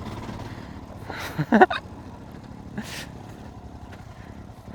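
Motorcycle engine idling with a steady low hum, with a short vocal sound about one and a half seconds in and a brief breath a little later.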